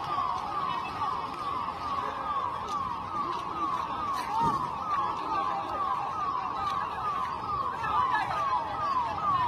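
An emergency siren sounding a fast yelp: a short falling sweep repeated a little more than twice a second, over a noisy background.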